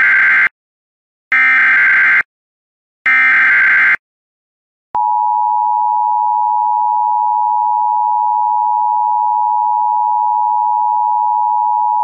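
Emergency Alert System signal for a tornado warning. First come bursts of SAME header data, a harsh warbling screech about a second long each: the tail of one, then two more with short gaps between. Then about five seconds in, the steady two-tone EAS attention signal (853 and 960 Hz) starts and holds.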